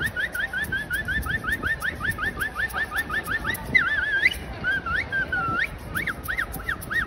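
A rapid run of short rising whistle-like chirps, about six a second. A little before halfway it gives way to slower warbling swoops and then repeated arching notes.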